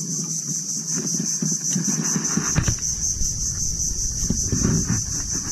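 Steady high-pitched insect chorus buzzing from the mangroves, with irregular low knocks and rumbling underneath.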